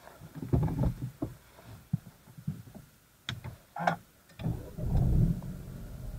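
Irregular knocks, bumps and rustles of handling inside a car cabin with the engine off, with a couple of sharper clicks in the middle. A faint steady hum starts at the very end as the ignition comes on.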